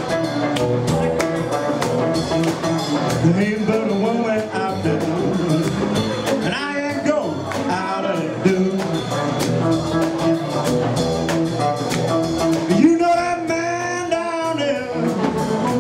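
Live blues band playing: electric guitar, upright double bass and drum kit, with an amplified lead line rising and falling over the top, strongest in the middle and again near the end.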